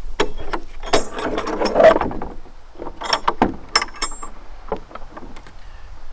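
Knocks and rattles of a pressure-treated wooden side panel folding on its metal hinges, densest in the first two seconds, then metal clicks and knocks around three to four seconds in as a locking pin is worked into its hole in the wood.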